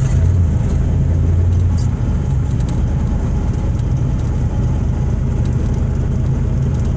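Rat rod's carbureted engine, fed by a Holley 4150 four-barrel carburettor, running just after a start on the manual choke. It runs a little higher for the first two seconds, then settles into a steady idle.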